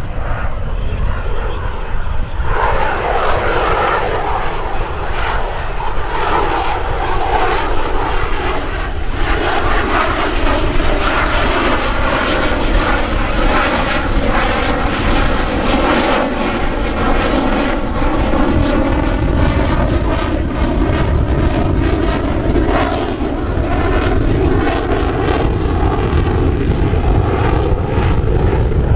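Boeing F/A-18F Super Hornet's twin General Electric F414 turbofans as the jet flies a demonstration manoeuvre: loud, continuous jet noise with a tone that sweeps slowly down and then levels off. A rough crackle runs through it from about ten seconds in.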